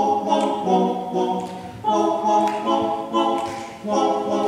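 All-male a cappella group singing without instruments: a lead singer on a handheld microphone over backing voices holding close chords. The chords change in a rhythmic pattern, with brief breaks about two and four seconds in.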